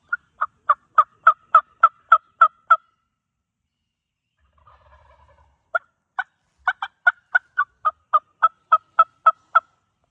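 Two runs of turkey yelps, each a series of short, sharp notes at about three to four a second: about ten in the first, then after a pause about fourteen more.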